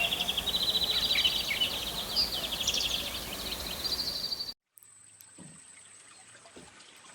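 Outdoor ambience of birds calling: short rising chirps over a rapid, buzzy pulsing trill. It cuts off suddenly about four and a half seconds in, leaving only a faint steady high tone and a few soft ticks.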